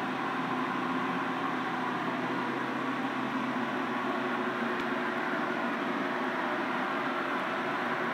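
Carpet-drying air mover (blower fan) running steadily: an even whir with a constant hum of several steady tones, unchanging throughout.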